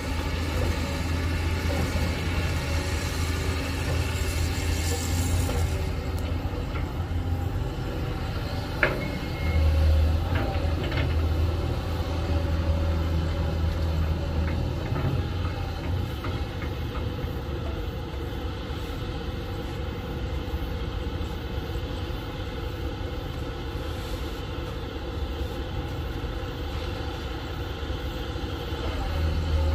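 Hitachi Zaxis 200 hydraulic excavator's diesel engine running with a steady low rumble while it digs in river mud. A single sharp knock comes about nine seconds in, and the engine gets louder for a couple of seconds just after.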